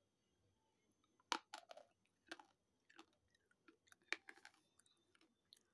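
A person biting into and crunching a hard, chalky white stick of slate pencil or clay. A few sharp crunches, the loudest about a second in, come with quieter chewing clicks between them.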